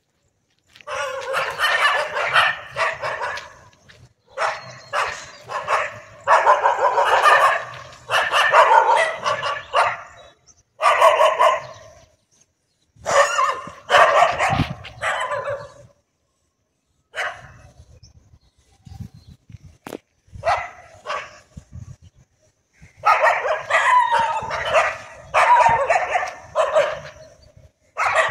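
Stray dogs barking in repeated bouts of several barks each, with a lull of a few seconds in the second half.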